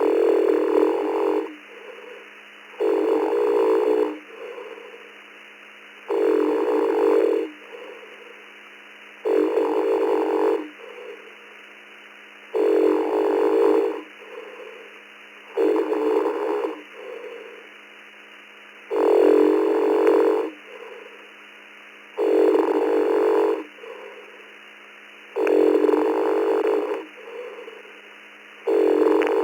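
A person snoring in deep sleep, heard over a ham radio voice channel. A loud rasping snore comes about every three seconds, each lasting about a second and a half, with a fainter breath between them. It sounds thin, as through a radio. The operator's radio was left on VOX, so each snore keys the transmitter.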